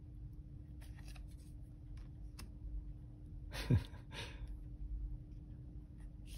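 Tarot cards being handled and turned over: soft rustles and light taps of card stock, with a short sound falling in pitch about halfway through.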